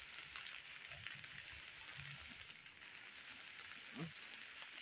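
Faint, steady hiss like light rain or background noise, with a few soft low thumps and a brief vocal sound about four seconds in.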